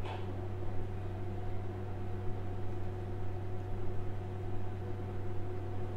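Steady low background hum with a faint hiss, unchanging throughout, with no distinct events.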